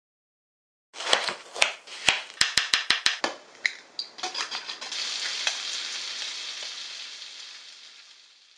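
About a second in, a run of sharp clicks and taps, including a quick even run of about five, as an egg is cracked into a glass bowl. Then bacon sizzling in a frying pan, a steady sizzle that fades away near the end.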